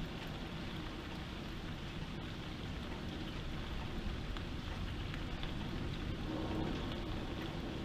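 Heavy thunderstorm rain pouring steadily, with a low rumble underneath.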